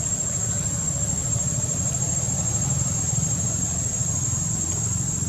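Steady high-pitched drone of insects such as cicadas or crickets, holding one unbroken tone, over a steady low rumble.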